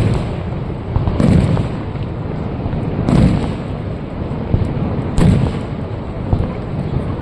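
Aerial fireworks shells bursting, about four booms roughly two seconds apart, each trailing off in a rolling echo over a steady rumble.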